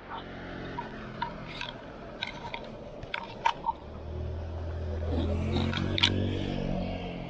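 Street noise with scattered light clicks and taps, then a motor scooter's engine passing close by from about four seconds in, swelling and fading with a sharp click near the peak.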